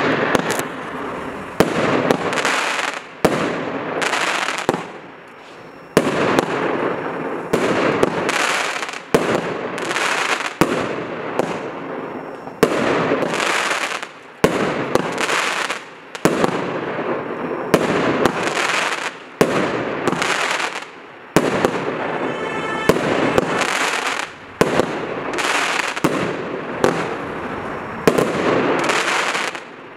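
Kimbolton Fireworks 'Warlord' 19-shot, 30 mm fireworks cake firing its sequence: a sharp report about every one and a half seconds, each followed by about a second of crackling burst.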